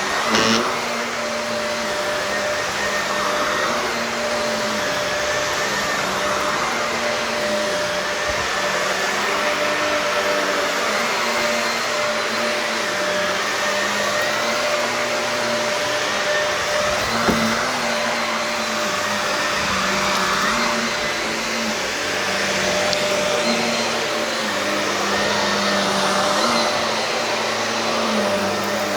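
Shark vacuum cleaner running steadily on carpet, its motor note shifting slightly up and down, with a sharp knock near the start and another about 17 seconds in.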